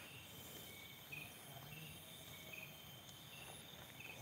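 Faint chorus of crickets and other night insects: short chirps repeating about once or twice a second over a steady high trilling.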